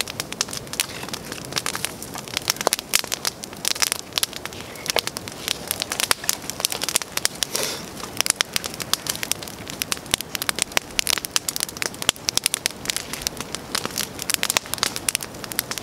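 Open wood campfire crackling with dense, irregular snaps and pops as fresh sticks are fed onto it.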